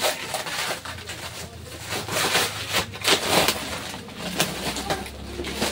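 Clear plastic and bubble wrap crinkling and rustling in repeated bursts as hands pull it aside on a taped cardboard parcel.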